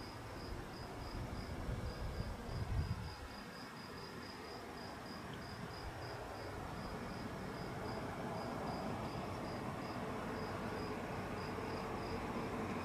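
A cricket chirping steadily, about three chirps a second, over a low road rumble. The rumble swells briefly about three seconds in and grows slowly toward the end as a vehicle approaches.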